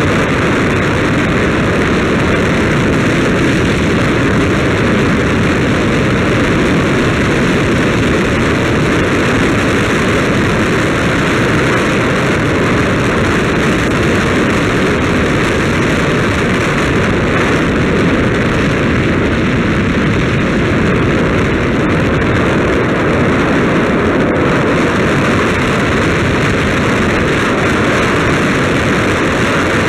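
Steady wind rushing over the microphone of a camera moving along a road, a constant loud rush with no change.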